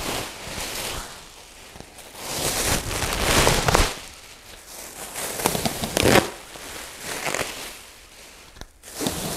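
Clear plastic bubble wrap and air-pillow packing crinkling and crackling as it is handled and pulled out of a shipping crate. The sound comes in several bursts with quieter gaps between.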